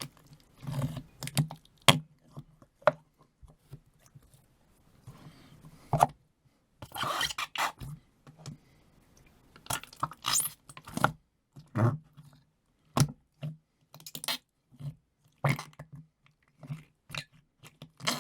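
Noise putty squeezed and pressed in its pot, giving a string of short squelches and fart-like pops at uneven intervals, with one longer squelch about seven seconds in.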